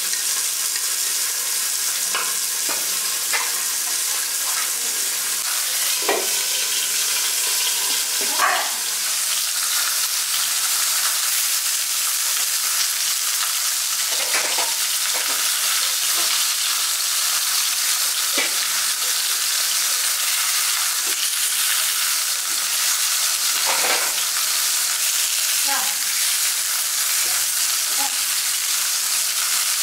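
Flour-coated torpedo scad frying in hot oil in a non-stick pan: a steady sizzling hiss, with a few brief knocks and scrapes of a spatula against the pan as the fish are worked.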